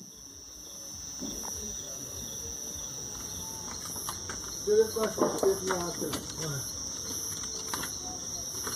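Insects, likely crickets, chirring: a steady high-pitched trill with a fainter pulsing call repeating above it.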